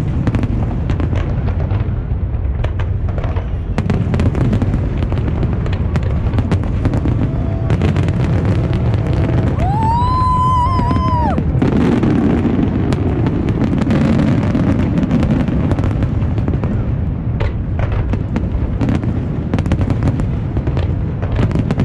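Aerial fireworks display going off continuously: a dense rumble of booms with many sharp crackles and pops. About ten seconds in, a high held tone sounds for roughly two seconds over it, rising at the start and dropping at the end.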